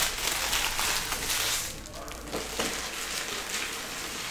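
Crinkling and rustling of foil trading-card pack wrappers being handled, loudest for the first second and a half, then quieter with scattered small crackles.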